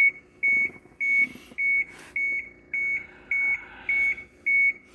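The bus's dashboard warning buzzer beeping steadily, just under two evenly spaced high beeps a second, with the ignition switched on before cranking. This is the key-on warning alert of a 1996 Blue Bird diesel bus waiting on its glow plugs, with the battery light on.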